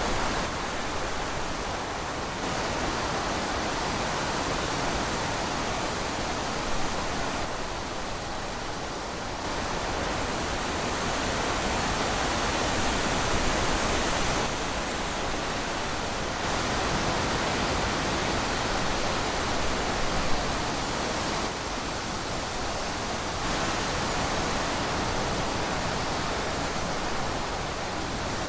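Wind blowing: a steady rushing noise that swells and eases every few seconds in gusts.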